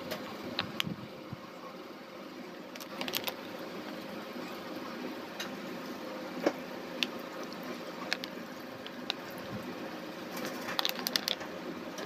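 A plastic seasoning packet crinkling in short crackly bursts while granules are shaken out of it onto vegetables in a stainless steel pot, with scattered sharp ticks. A steady background hum runs underneath.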